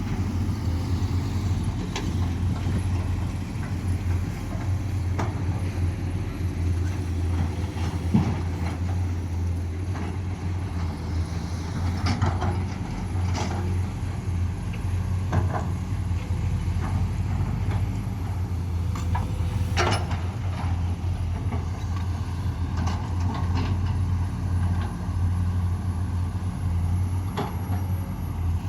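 Komatsu PC210 excavator's diesel engine running steadily under load while it digs and loads a dump truck, with a few short knocks of the bucket and soil scattered through it.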